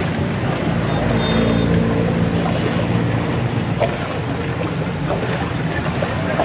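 A blender motor running steadily as it mixes a large pot of milk, crushed ice and flavour syrup.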